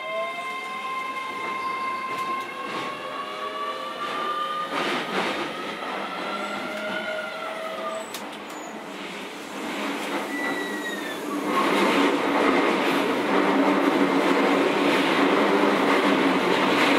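Keio 7000 series electric train accelerating away from a stop, heard from inside a passenger car: the traction motor whine climbs in pitch, with scattered rail clicks. A little over two-thirds of the way through, the running noise grows louder and fuller as speed builds.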